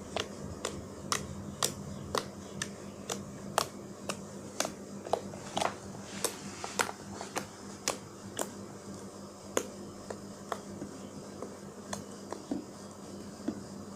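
Soft slime made with opaque white glue being poked over and over with the fingers, giving sharp little pops, roughly two a second and uneven, growing fainter near the end.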